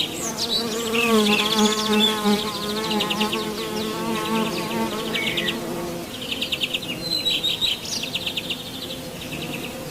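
A beetle buzzing in flight: a wavering hum, loudest in the first half and fading after about five seconds. Rapid high trills and chirps repeat behind it.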